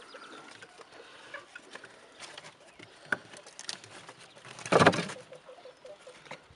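Californian rabbit kits shuffling and scrabbling on fur-and-litter bedding in a wooden nest box: scattered small rustles and clicks, with one loud scuffling bump about three-quarters of the way through.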